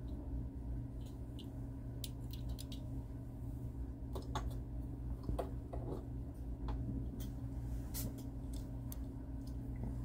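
Small motorized rotating display stand turning, with a steady low hum and scattered light clicks and ticks.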